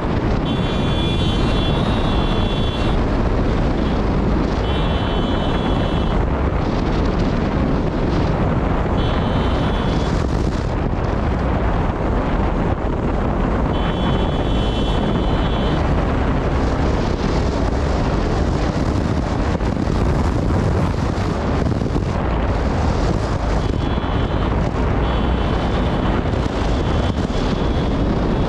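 Motorcycle ride at speed: steady wind buffeting the microphone over engine and road noise. A high, steady tone sounds briefly several times.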